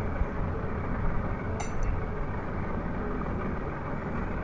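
A single brief, bright clink of beads about one and a half seconds in, as they are slid one by one onto the crochet thread. A steady low rumble runs underneath.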